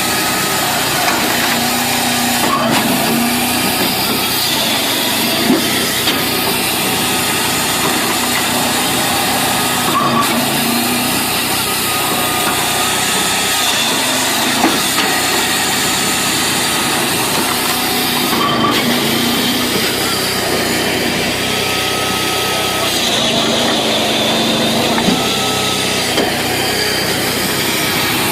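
Firewood processor running: a steady engine drone with sawing, and a few light knocks now and then.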